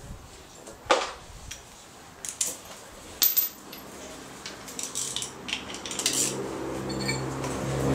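Metal hand tools clinking: a socket, extension and ratchet being handled, with several sharp clinks, the loudest about a second in and about three seconds in. A steady low hum comes in over the last few seconds and grows louder.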